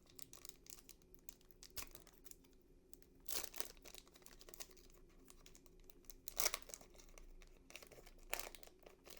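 Plastic trading-card pack wrapper crinkling and tearing as it is opened by hand: faint scattered crackles, with louder crinkles a few seconds in, after about six seconds and again near the end.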